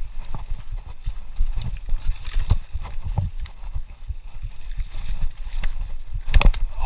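Mountain bike clattering over roots and rocks on a dirt trail: an irregular stream of knocks and rattles from the bike with a steady low rumble, and one hard knock near the end.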